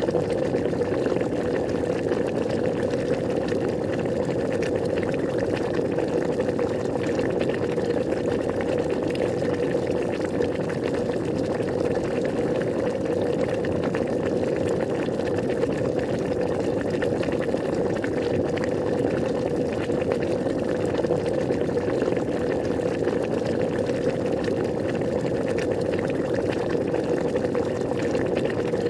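Water at a steady boil, bubbling continuously and evenly.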